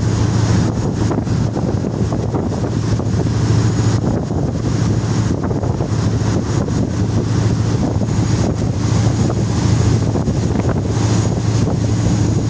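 Boat engine running steadily with a low drone, under the wash of the wake and wind buffeting the microphone.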